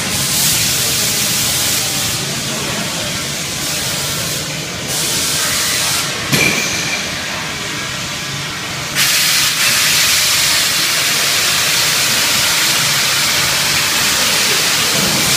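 Steady loud hissing from slaughter-line equipment, like compressed air or spray. It grows louder about nine seconds in, with a short sharp knock about six seconds in.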